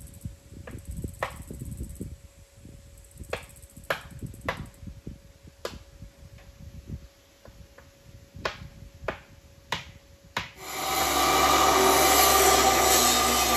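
Scattered sharp clicks and knocks on the steel frame. About ten seconds in, a loud power tool starts up abruptly and runs steadily.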